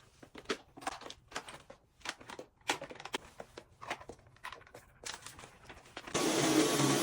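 Irregular rustles and clicks of things being handled and moved, then, about six seconds in, a vacuum cleaner switches on abruptly and runs with a steady noise.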